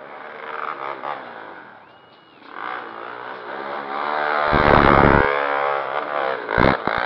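Sport quad ATV engine revving hard, rising in pitch and level to its loudest about five seconds in, with two short sharp bursts near the end.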